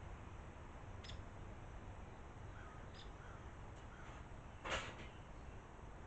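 A single harsh crow caw about three-quarters of the way in, over a quiet background with a few faint high ticks.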